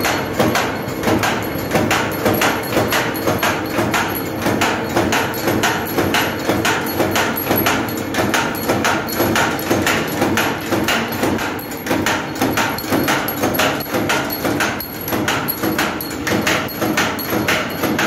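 Suman wire straightening and cutting machine running, with an even, quick clatter of knocks, a few a second, over a steady hum.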